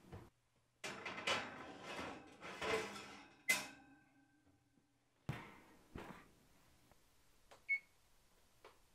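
A cast iron pot set onto an oven's wire rack, with about two seconds of scraping and clattering and then a sharp metal clank, followed by two knocks as the oven door is shut. Near the end, one short beep from the electric range's control panel as a button is pressed.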